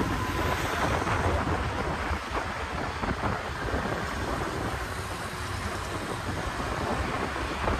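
Wind buffeting the microphone while riding through city traffic, a steady rushing rumble with road and engine noise beneath it.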